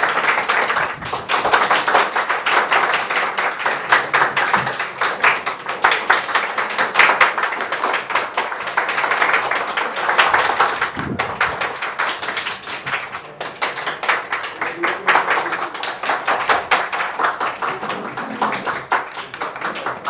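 A small group of people clapping hands steadily in a room.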